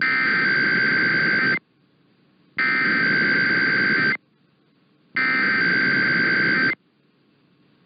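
Emergency Alert System SAME header: three identical bursts of buzzing digital data tones, each about a second and a half long, with about a second of quiet between them. The header encodes a Required Weekly Test.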